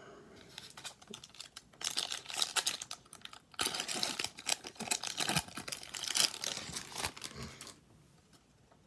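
Foil trading-card pack wrapper crinkling and tearing as it is opened, in two long stretches with a short pause between them, then it goes quiet near the end.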